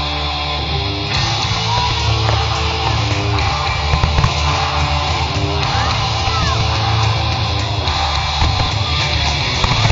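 Loud rock music with electric guitar and a strong, steady bass, running without a break.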